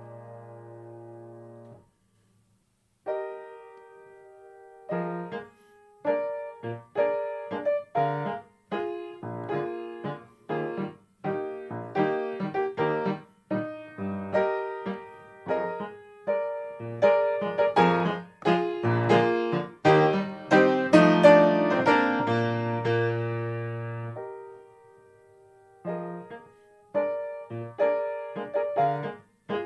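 Toyo A-25 grand piano playing a waltz passage. A held chord fades into a short pause, then the playing builds to a loud stretch ending on a held chord, pauses briefly, and starts again near the end.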